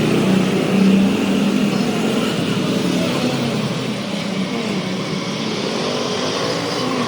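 A motor running steadily with a low hum, a hiss of noise over it.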